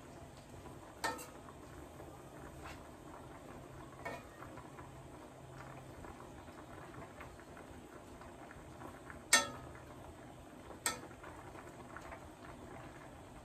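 Metal spatula stirring ground meat and vegetables in a skillet, knocking against the pan a few times with sharp clinks, the loudest about nine seconds in, over a low steady background.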